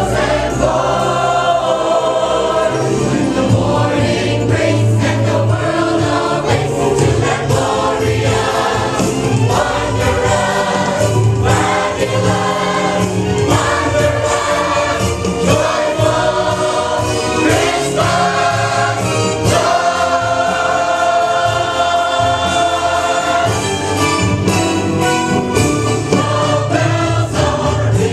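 Church choir singing a gospel-style Christmas cantata with instrumental accompaniment and a steady bass line.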